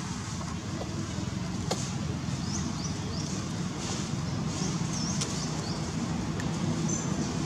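Outdoor background: a steady low rumble throughout, with a single click about two seconds in and a few short, high chirps in the middle.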